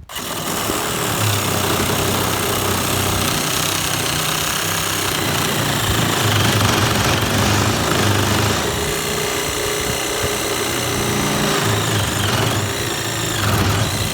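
Handheld power saw cutting rough-cut lumber, running steadily and hard for about fourteen seconds and stopping just after the end. The tool shakes enough to rattle your teeth.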